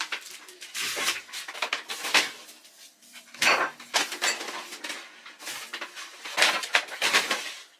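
Grocery bags rustling and food items being handled and set down, in a string of irregular short crackles and knocks.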